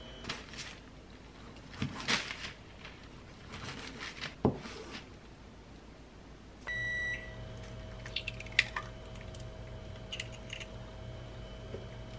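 A few sharp knife cuts and taps on a plastic cutting board as pork belly is chopped. About seven seconds in, an induction cooktop gives a short electronic beep as it switches on, then runs with a steady electrical hum while small clicks and taps go on over it.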